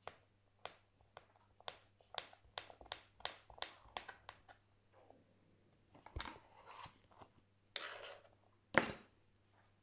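Kitchen knife chopping crisp vegetables on a cutting board for a salad, a sharp crunching tap about twice a second, then a few louder scrapes and one hard knock near the end.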